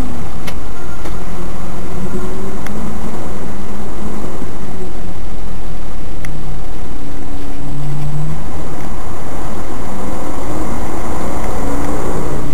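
A moving vehicle's engine and road noise heard through a dashcam's microphone: a loud, steady rumble with a few sharp clicks.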